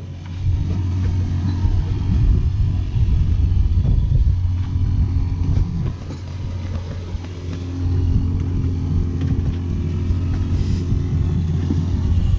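Small outboard motor on an inflatable dinghy idling steadily, with wind buffeting the microphone.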